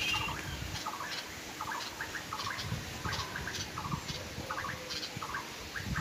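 Red-vented bulbuls calling: short, harsh chirps repeated about three times a second, with faint rustling beneath.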